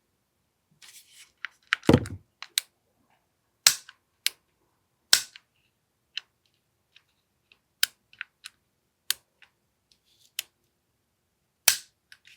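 AAP-01 airsoft pistol being worked by hand: a series of sharp mechanical clicks and snaps, four loud ones a second or more apart with smaller ticks between, as its trigger, hammer and slide are cycled while testing for a firing pin that sticks.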